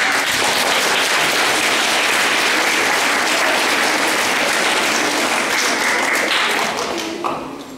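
Audience applauding in a hall, steady clapping that dies away about seven seconds in.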